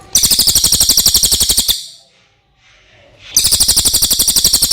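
Cililin songbird giving two loud, very fast trills of rapidly repeated high notes, about fifteen a second. Each trill lasts about a second and a half, and the second starts roughly three seconds in.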